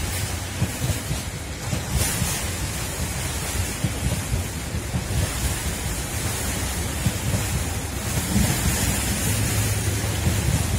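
Freight train's flat wagons rolling slowly past on the adjacent track: a steady rumble of wheels on rail, with wind buffeting the microphone.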